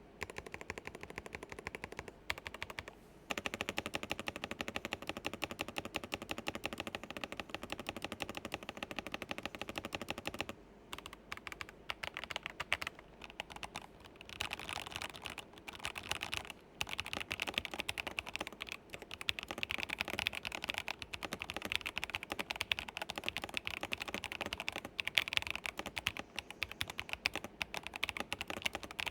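Fast typing on a RisoPhy PC432 budget mechanical keyboard with light linear switches, a rapid clatter of keystrokes. A few seconds in it becomes a dense, even run of clicks, then goes on in uneven runs with brief pauses.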